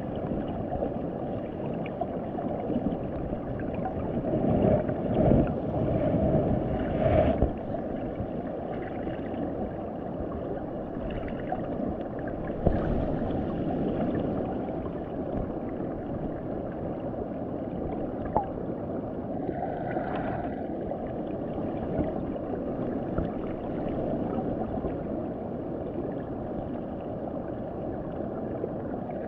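Muffled low rush of water heard through a submerged camera, with a few louder swells about four to seven seconds in and one short knock about thirteen seconds in.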